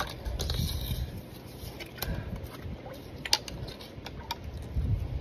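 Crab hook probing a mud crab's burrow among mangrove roots: scraping and scuffling in the mud with a few sharp clicks and knocks, over a low rumble.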